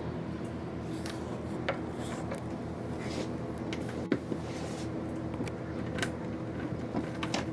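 A cable being pulled up through a rubber grommet in a boat console: rubbing and scraping with a few sharp knocks. Under it runs a steady low hum.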